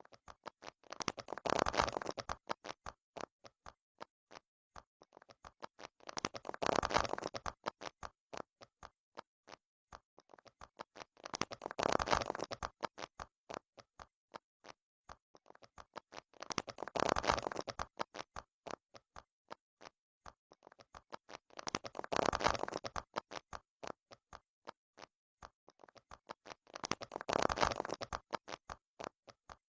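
Silicone pop-it fidget toy bubbles being pressed, giving a run of separate quick pops with a dense flurry of pops about every five seconds.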